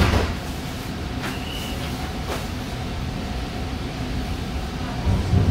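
Alstom Citadis light rail train running slowly through an underground station, heard from inside the car: a steady rumble of wheels and motors, with a short high tone about a second and a half in and a low thump near the end.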